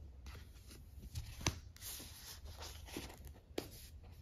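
Faint rustling and handling noise as skeins of acrylic yarn wrapped in paper labels are moved and picked up, with a light tap about one and a half seconds in.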